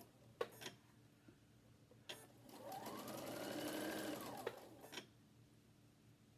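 Domestic sewing machine: a few sharp clicks, then a short run of stitching of about two and a half seconds in which the motor speeds up and slows down again, ending in a click. The owner calls the machine cranky and due for a cleaning and check-over.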